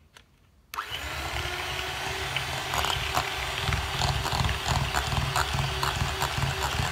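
Electric hand mixer switched on about a second in, its motor running steadily while the twin whisk beaters tick against the glass bowl, beating eggs and sugar.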